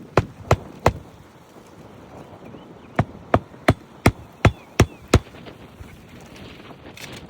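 Hammer driving roofing nails through an asphalt shingle by hand: three blows near the start, then a run of seven blows from about three seconds in, about three a second.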